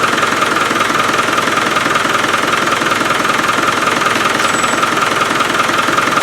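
Land Rover 300Tdi four-cylinder turbodiesel engine idling steadily with its usual diesel clatter. It has been freshly rebuilt with a new P (timing cover) gasket, and its drive belt is running fine.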